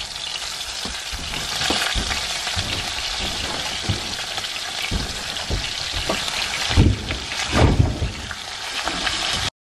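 Raw bacon strips sizzling as they are laid one by one into a hot stainless-steel frying pan, a steady hiss of frying fat. A few louder knocks come about seven seconds in, and the sound cuts off abruptly just before the end.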